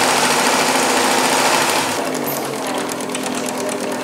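Electric sewing machines running at speed, stitching. About two seconds in, the sound changes to a lighter, fast, even needle clatter over a steady hum.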